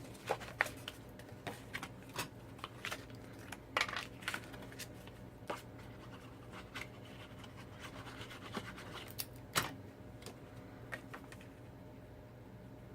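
Cardstock being handled on a desk: scattered light taps, scrapes and rustles of paper as the inside panel is set into place and pressed onto the card, with a sharper click about 4 s in and another about 9.5 s in. The sounds thin out near the end.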